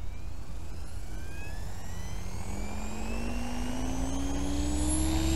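XLPower 520 RC helicopter spooling up on the ground: a motor and rotor whine that rises steadily in pitch and grows louder toward the end.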